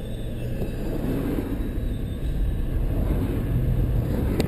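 Small car driving, its engine and road noise heard from inside the cabin as a low rumble that grows louder about a second in. A single sharp click comes near the end.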